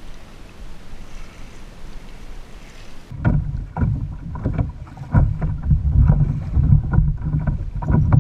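Kayak on choppy sea: faint wind and water hiss, then from about three seconds in a loud, muffled low rumble with irregular knocks, wind buffeting and waves slapping the kayak's hull, picked up close by a GoPro camera mounted on the boat.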